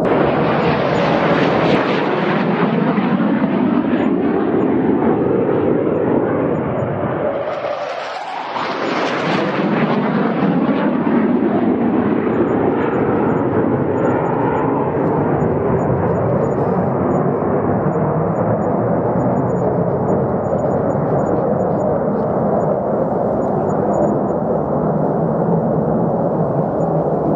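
Fighter jet engines roaring loudly and continuously, with a brief dip and a sliding shift in pitch about eight seconds in before the roar builds back.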